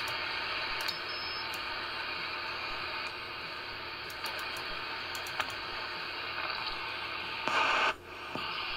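Steady receiver hiss and band static from the Magnum Omegaforce S45 10-meter radio's speaker as the frequency is tuned across the band. Near the end, a louder burst of hiss lasting about half a second comes as the mode is switched to FM. It drops off suddenly afterwards.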